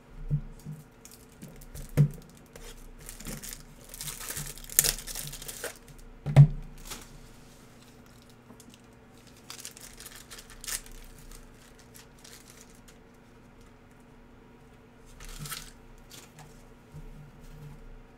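Foil wrappers of basketball card packs being torn open and crinkled by hand, mostly a few seconds in and again briefly near the end. Sharp knocks as packs and cards are handled, the loudest about six seconds in, over a steady low hum.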